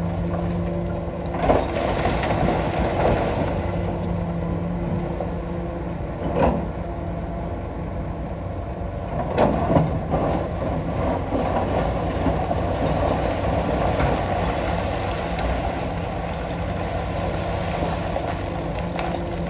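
Komatsu PC220-6 hydraulic excavator working: its diesel engine runs steadily and grows louder under hydraulic load, with a few sharp clanks of the bucket on rock about one and a half, six and a half and nine and a half seconds in.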